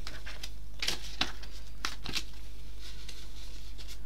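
Paper and card rustling as hands handle journal pages and slide small cards out of a paper pocket, with a few sharp crinkles about one and two seconds in. A steady low hum runs underneath.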